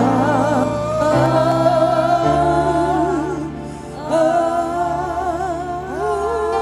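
Gospel singing: a voice holds long notes with wide vibrato over sustained accompaniment chords that change a couple of times.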